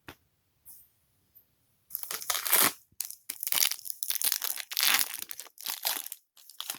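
A few light clicks, then from about two seconds in, about five seconds of crinkling and tearing of a foil trading-card pack wrapper as it is ripped open.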